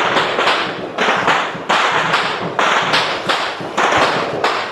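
Loud, irregular banging and slapping, several sharp strokes a second that overlap into a continuous clatter.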